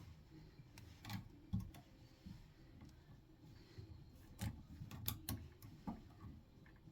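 Faint, scattered light clicks and taps of piston rings being worked into their grooves on a piston by hand.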